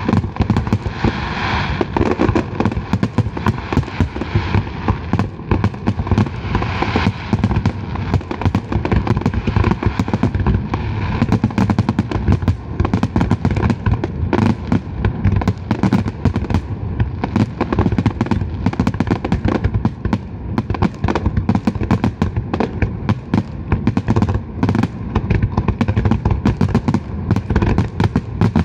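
Aerial fireworks exploding in a dense, unbroken run of rapid bangs and crackles.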